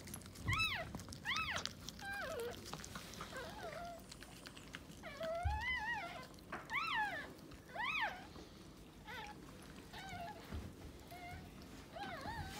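Newborn puppy crying in repeated short, high-pitched squeals, each rising and then falling in pitch, some coming in quick pairs.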